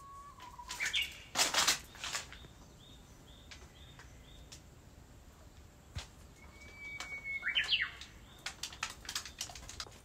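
Japanese bush warbler (uguisu) singing its "hoo-hokekyo" song twice: each time a long held whistle and then a quick flourish, once right at the start and again about seven seconds in. A brief rustling noise comes about one and a half seconds in.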